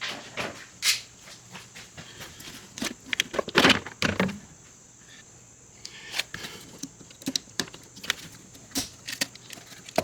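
Scattered clicks, knocks and scrapes of hard plastic parts and tools being handled, with a louder scraping rattle a little under four seconds in.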